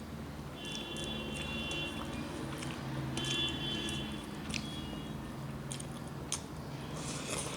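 Close-up eating sounds of a person chewing rice and curry, with wet mouth clicks and smacks scattered through.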